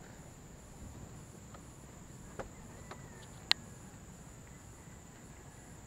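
Faint open-air ambience with a soft high pulsing about twice a second and a few small clicks, the sharpest about three and a half seconds in.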